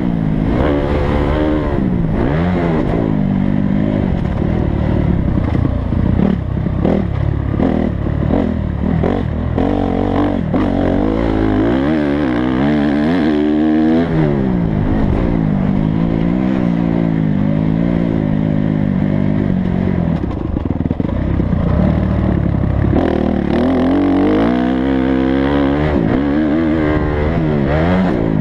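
Dirt bike engine heard close up from the racing bike itself, revving up and falling back again and again under throttle and gear changes, with a rough clatter and rush of noise over it. About twelve seconds in the engine drops away briefly, then climbs steeply as the throttle comes back on, which fits a jump.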